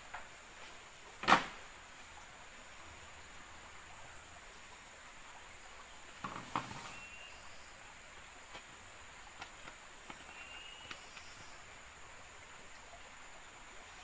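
A single sharp knock of a bamboo pole about a second in, then a short crackle of dry leaves and fronds being handled around the middle, with a few faint clicks after it. A steady high insect drone runs underneath.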